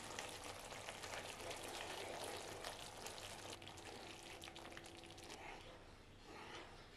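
Faint sizzling and bubbling of curry sauce in a pan, just thinned with water and stirred with a wooden spoon. The crackling dies down about five seconds in.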